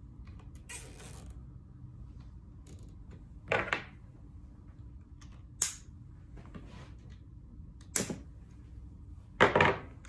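Nylon cable ties zipping through their ratchets as they are pulled tight around a fibre-optic cable loop, and side cutters snipping off the tie tails. A short rasp comes first, then four separate sharp snaps, the loudest near the end.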